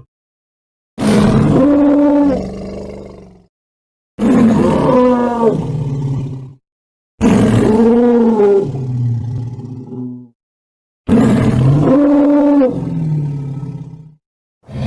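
Four dinosaur roar sound effects made for a Daspletosaurus, each about two to three seconds long. Each roar rises and falls in pitch and trails off into a lower tone, with silence between them.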